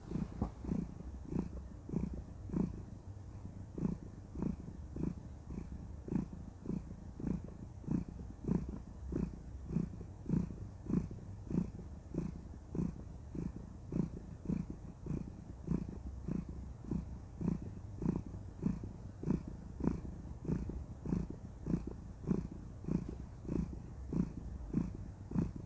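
A domestic cat purring steadily, the purr swelling and fading in an even rhythm of about three pulses every two seconds: a contented cat.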